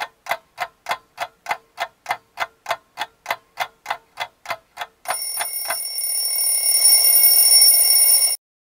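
A clock ticking steadily, about three and a half ticks a second. About five seconds in, an alarm clock bell rings for some three seconds and cuts off suddenly.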